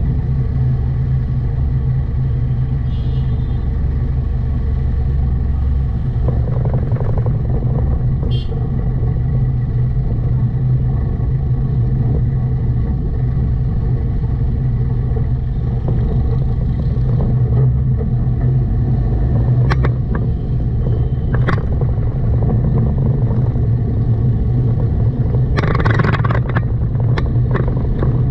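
A car driving through city traffic: steady engine and road noise with a low hum, a few short high beeps from horns in the first ten seconds, and several sharp clicks and rattles near the end.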